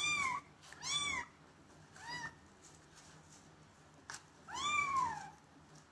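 Kitten meowing four times, each a high mew that rises then falls in pitch; the third is faint and the last is the longest. A small click comes just before the last meow.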